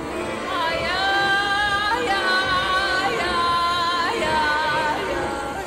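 Dramatic film background score: a high, drawn-out wordless melody line that swells in about half a second in, holds with small pitch slides and fades near the end, over a low backing.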